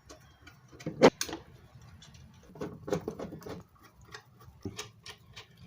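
Small clicks and taps of flathead screws being set and driven by hand into the router table's mounting holes, with a sharper knock about a second in.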